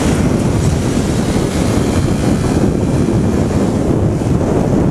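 Wind buffeting the action camera's microphone on a moving motorcycle, with the engine and road noise underneath as a steady rumble.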